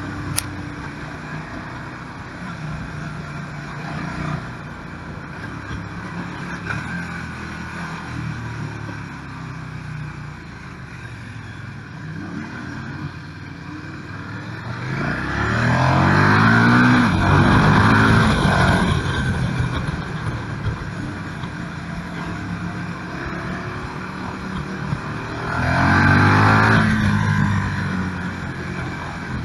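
KTM 1290 Super Duke R's V-twin engine heard onboard, running at low revs and then accelerating hard twice, its pitch rising, once about halfway through and again near the end.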